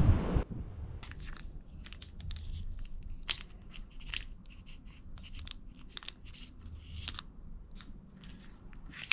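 Plastic ice-cream bar wrappers crinkling and crackling in small, irregular clicks as fingers squeeze and handle the soft bars. A loud burst of wind noise on the microphone cuts off sharply in the first half-second.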